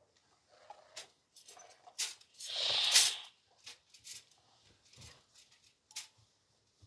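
Clothes being handled and shaken out on an ironing board: light knocks and clicks about once a second, and one loud rustling swish lasting under a second about two and a half seconds in.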